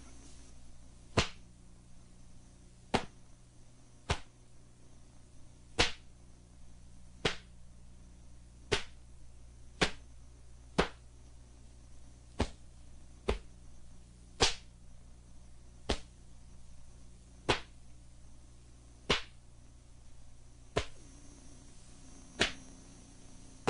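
Taekwondo uniform (dobok) snapping sharply with each block, punch and kick of the Taegeuk 2 form: about seventeen crisp snaps, roughly one every second to second and a half, over a low steady hum.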